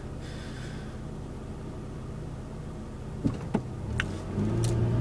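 Car engine and road noise heard from inside the cabin, with a few light clicks about three seconds in; near the end the engine note grows louder.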